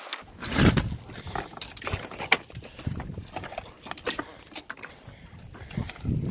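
Hiking boots scuffing and trekking-pole tips clicking on granite rock during a steep climb, as irregular clicks, knocks and scrapes. A loud rush comes about half a second in.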